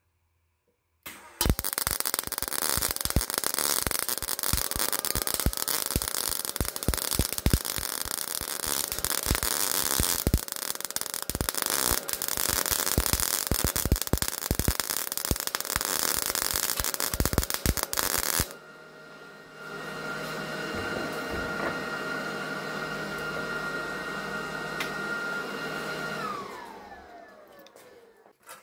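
Miller 211 MIG welder arc on thin auto body sheet metal at a very low voltage setting, crackling and popping irregularly as the wire stubs into the base metal without melting in: the sign of voltage far too low. It starts about a second in and stops abruptly around two-thirds through. A quieter steady machine hum follows and winds down with a falling pitch near the end.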